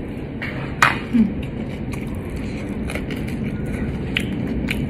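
Close-miked eating: a mouthful of rice being chewed, with small mouth clicks and one sharp click about a second in, over a steady low rumble of background noise.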